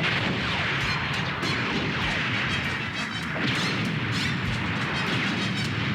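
Cartoon sound effects of a huge explosion: continuous rumbling blasts and crashes that start suddenly, the underground city's overloaded geothermal generators blowing up, with dramatic music under them.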